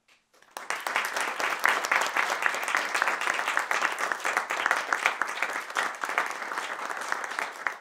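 Audience applause that breaks out about half a second in: many hands clapping densely and steadily.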